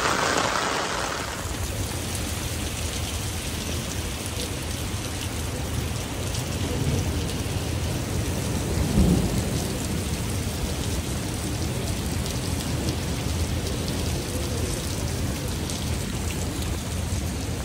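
Heavy rain pouring onto wet paving and parked cars in a storm. A steady low rumble runs underneath and swells briefly about nine seconds in.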